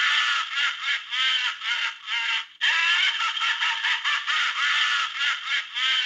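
Philips 350 mobile phone playing its 'FreddyLaugh' ringtone through its small built-in speaker: a recorded laugh of rapid, repeated arching syllables, with a brief break about two and a half seconds in.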